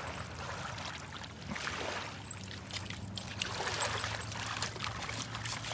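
River water trickling and splashing at the edge of the bank, with scattered small clicks and splashes over a faint steady low hum.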